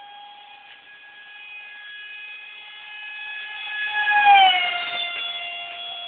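Radio-controlled model jet flying past with a high, steady whine that grows louder, peaks about four seconds in with a rushing sound, then drops in pitch as it passes and moves away.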